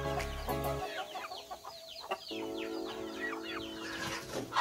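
Game roosters clucking, with background music playing under them; a brief loud sound comes near the end.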